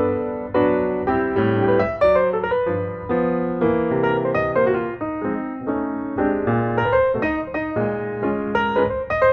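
Background piano music, notes struck several times a second with chords underneath.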